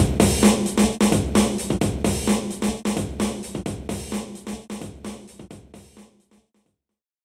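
Electronic background music with a steady drum beat, fading out and ending about six seconds in.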